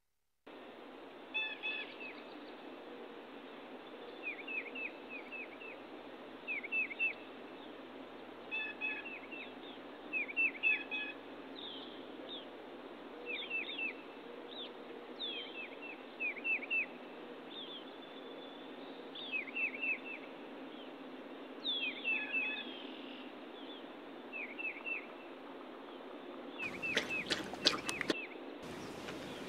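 Small songbirds chirping in woodland: short, quick chirps in groups of two to five, repeating every second or two over a steady hiss. Near the end, a few sharp clicks.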